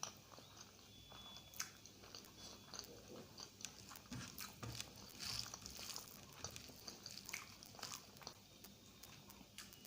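Close-miked mouth sounds of a person eating egg curry with rice: wet chewing, smacking and small clicks, coming irregularly.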